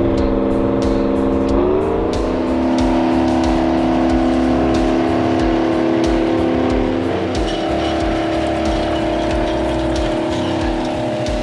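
Large diesel engine running at a steady speed, its pitch rising a little under two seconds in and shifting again about seven seconds in, with background music.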